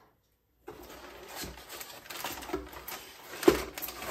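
Cardboard packaging and hard plastic toy parts being handled: rustling and scraping of cardboard with light clicks and knocks, and one sharp knock about 3.5 seconds in. The sound starts after a moment of dead silence.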